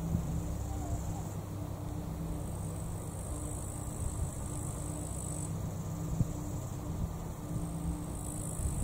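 High-pitched insect buzzing from summer grass, coming in stretches of a few seconds, loudest near the end, over a steady low outdoor rumble.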